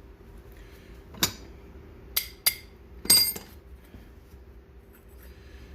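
Metal parts clinking and knocking together as a coupler adapter is taken out of a drive sheave and refitted. There are four sharp clinks, and the loudest, about three seconds in, rings briefly.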